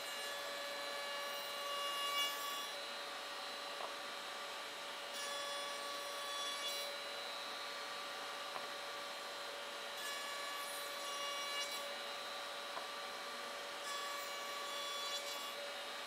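A Freud FT3000VCE router mounted in a router table runs at a steady whine. A quarter-round bit rounds over the edges of plywood push pads in four passes of about two seconds each, and each cut adds a rasping, higher sound over the motor.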